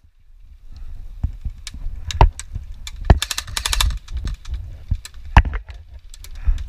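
Sharp cracks of airsoft guns firing now and then, with a short rapid burst of shots about three seconds in, over a low rumble of wind and handling on the microphone.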